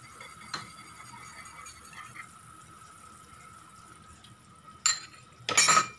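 Cornstarch slurry poured from a small cup into a pan of onion and oyster-sauce gravy: a short splash about five seconds in, then a louder splash just before the end. Under it runs a faint steady high tone.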